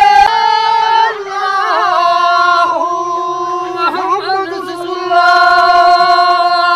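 Men's voices singing a Kashmiri folk song in long, held high notes, the pitch shifting from one note to the next.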